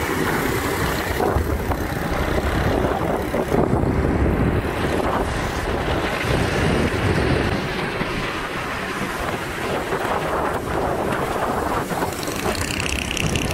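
Wind rushing over the microphone of a moving motorcycle, with the bike's engine and road noise underneath.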